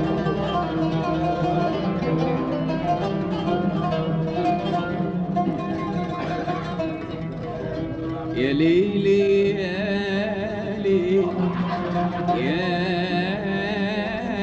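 Background music: a Middle Eastern-style song over plucked strings, with a voice entering about eight seconds in on long sliding notes.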